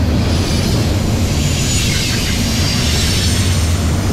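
Freight train gondola cars rolling past on the rails: a steady low rumble of steel wheels on track, with a higher hiss that grows louder around the middle.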